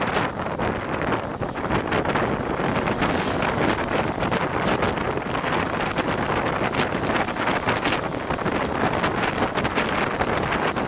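Wind buffeting the microphone of a camera filmed from a moving vehicle on the highway, a steady rushing noise with uneven gusts, over the vehicle's road noise.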